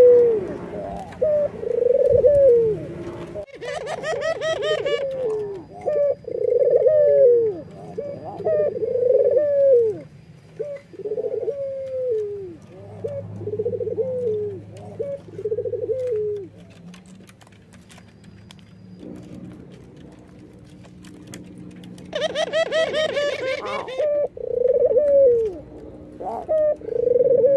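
White ringneck dove (puter) cooing: a run of rounded coos repeated about every two seconds, a pause of several seconds about two-thirds through, then more coos near the end. Two short, high, rapid rattling bursts come about four seconds in and shortly before the coos resume.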